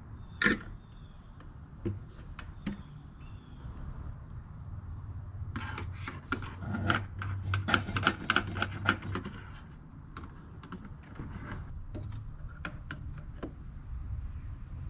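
Scattered clicks and light plastic rattling, with a dense run of clicks from about six to nine seconds in: hands working with a turkey baster at the brake master cylinder reservoir, getting ready to draw out the old brake fluid.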